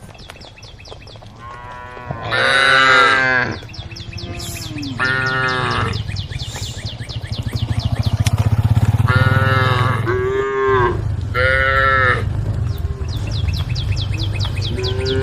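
Cattle mooing: about five long calls a few seconds apart, the loudest about two seconds in, over a steady low rumble.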